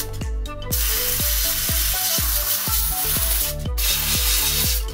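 McCulloch handheld steam cleaner spraying a jet of steam onto stove grates: a steady hiss that starts under a second in, cuts out briefly about three and a half seconds in, then resumes. Background music with a steady beat plays under it.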